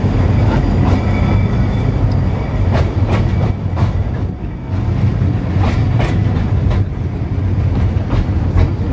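Great Orme Tramway's cable-hauled tramcar running on its rails: a steady low rumble with irregular sharp clacks from the wheels and track.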